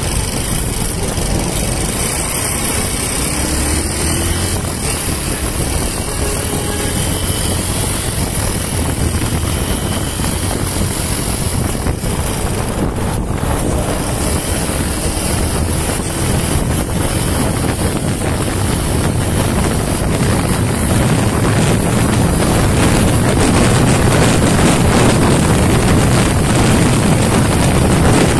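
Honda TMX 125's single-cylinder four-stroke engine running steadily under way in traffic, mixed with wind rushing over the handlebar microphone. It grows louder over the last several seconds.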